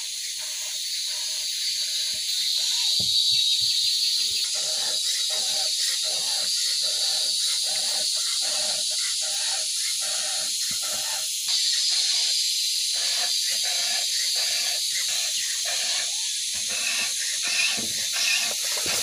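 Hand-filing of a chainsaw chain: a round file rasps over the cutters in short strokes, about two a second, starting a few seconds in and stopping near the end. Behind it runs a steady high drone of insects.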